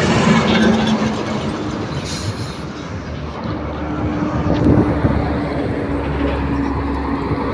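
Road vehicle noise beside a highway: a dense low rumble, with a steady engine hum coming in about halfway through.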